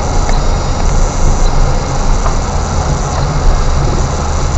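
Car driving along a dirt road, heard from inside the cabin: a steady low rumble of engine and tyres on the rough track, with a few light knocks.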